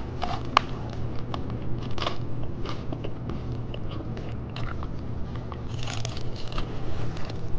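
Close-miked eating sounds: a person biting and chewing hard candy, with irregular sharp crunches and crackles over a steady low hum.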